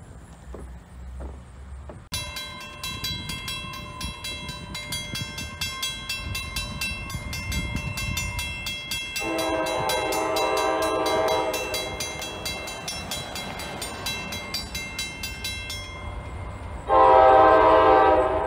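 Railroad crossing bell ringing in quick, even strokes as the crossing gates come down. A GE B36-7 diesel locomotive's horn sounds one long chord about nine seconds in and starts another near the end, over the low rumble of the approaching locomotive.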